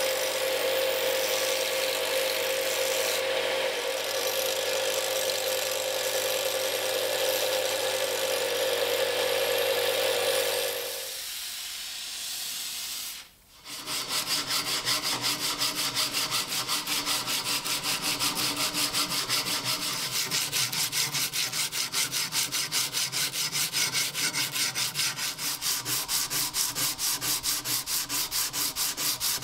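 Small belt grinder running with a steady hum while a rusty steel bayonet blade is ground against the belt; the motor winds down about eleven seconds in. After a short break, quick, even back-and-forth rubbing strokes of hand abrasive work on the metal.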